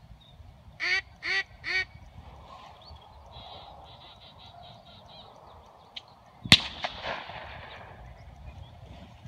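Three quacks on a duck call about a second in, then a single gunshot some five seconds later that rings out across the field: the call-and-shot that signals a thrown mark to a retriever.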